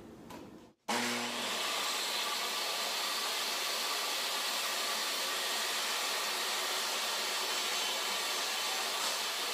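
Portable jobsite table saw running at full speed in a steady whine while a thin trim panel is ripped. The sound starts suddenly about a second in.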